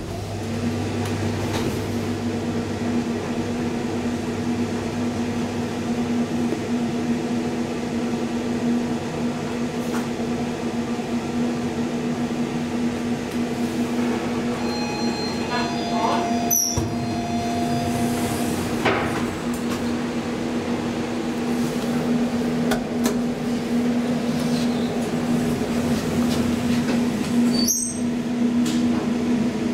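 Bravida hydraulic elevator running during a ride: a steady hum with one clear low tone. Two sharp clicks cut through it, one a little past the middle and one near the end.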